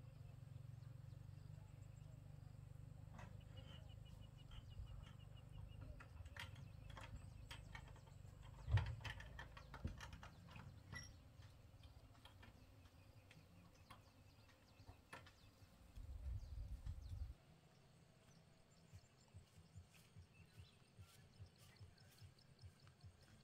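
Faint outdoor ambience: a low wind rumble on the microphone, scattered small clicks and a few bird chirps, with one louder knock about nine seconds in. The rumble stops abruptly past the middle, leaving quieter ambience with light ticks.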